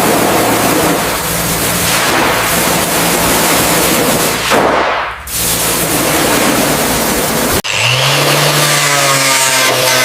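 Loud, steady machine noise, a dense hissing rush, which changes abruptly about three-quarters of the way in to a motor running at a steady pitch.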